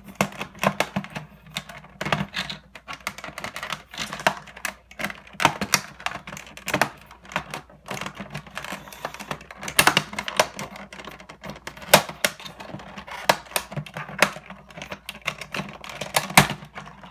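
Irregular sharp plastic clicks and snaps, several a second, as the clear plastic case of a 3D Systems Cube 3 filament cartridge is pried up all the way around with an ABS plastic Lego pry tool.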